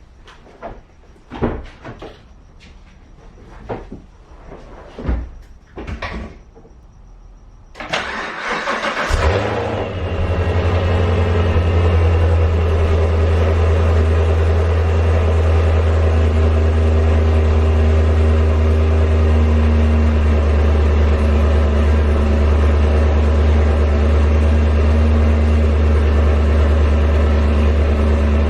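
Supercharged Chevrolet Camaro SS's V8 with long-tube headers cranking about eight seconds in, catching with a brief rev and settling into a steady, loud idle. A few short knocks come before the start.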